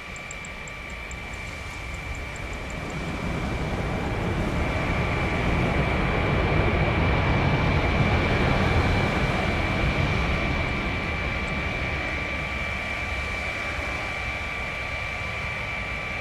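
Boeing 787 Dreamliner's Rolls-Royce Trent 1000 jet engines rumbling during its landing rollout, swelling to a peak about halfway through and easing off as the airliner slows, with a steady high whine throughout.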